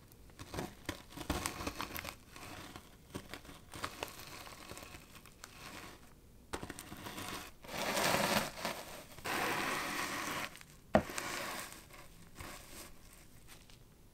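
Digestive biscuits being crushed in a plastic bag with a plastic rolling pin: the bag crinkling and the biscuits crunching under repeated rolling, loudest in a long stretch about eight to ten seconds in. A single sharp knock comes about eleven seconds in.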